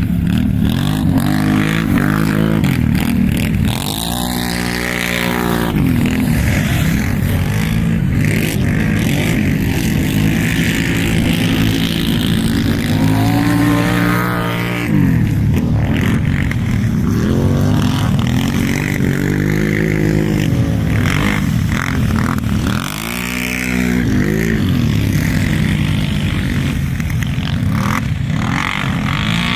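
Racing quad (ATV) engine running hard at high revs. Its pitch drops and climbs back up three times as the throttle is eased and opened again.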